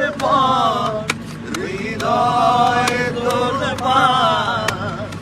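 Bangla song: a voice sings a sustained, gliding melodic line between lyric phrases over a light, evenly ticking beat.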